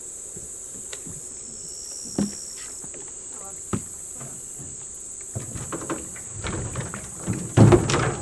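Steady high insect chorus. Over it come scattered knocks and thuds of footsteps on a wooden dock and of a person climbing into a small jon boat, growing busier toward the end, with the loudest clatter just before it.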